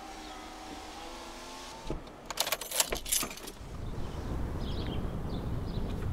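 A Honda Civic's driver door is unlatched and pushed open from inside, with a quick cluster of clicks and rattles. Then a steady low rush of open air comes in once the door stands open.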